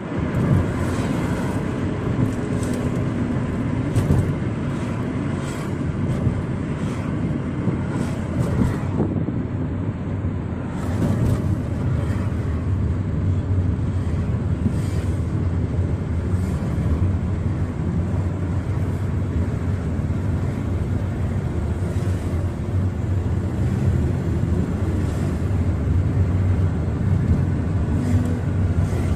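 A car driving along a city road, heard from inside the cabin: a steady low rumble of engine and tyre noise.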